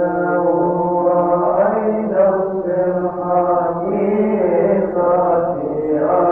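A male voice chanting a Coptic liturgical hymn, holding long, drawn-out notes that step up and down in pitch.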